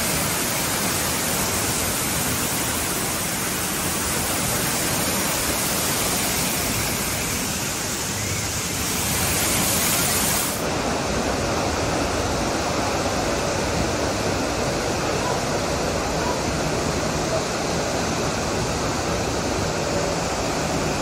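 Steady rush of flowing, splashing water, a loud even hiss; its highest part falls away suddenly about halfway through.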